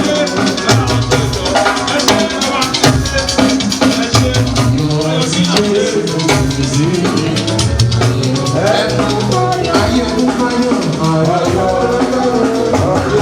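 Music with a busy drum-kit beat under sustained melodic lines.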